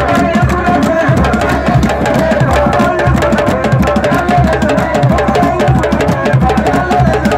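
Several djembe hand drums played together in a fast, dense rhythm, sharp slaps over recurring deep bass strokes.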